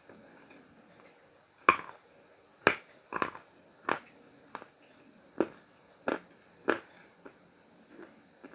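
Khrapovsky chalk being bitten and chewed, giving a series of sharp crunches about one a second, the first loud one about two seconds in, with fainter chewing clicks between.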